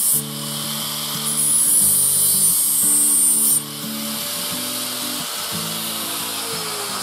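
Small angle grinder with an abrasive flap disc grinding the steel edge of a lawn mower blade to sharpen it: a loud, high-pitched grind that stops just after the start, then a second pass from about a second in that stops suddenly about three and a half seconds in. Background music plays throughout and is all that is left after the grinding.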